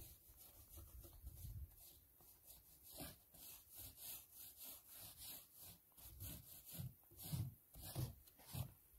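Faint, rhythmic swishing strokes of a brush spreading primer over a roof surface, several strokes a second, with a few heavier knocks near the end.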